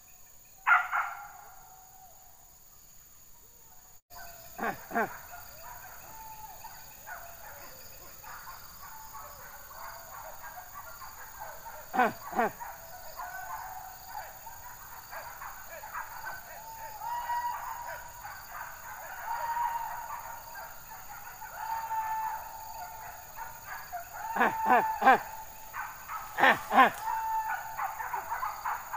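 A pack of hunting dogs barking and baying at a distance while chasing a wild boar through scrub. Sharp barks come about a second in and again around twelve seconds, wavering baying carries on in between, and a burst of barking comes near the end.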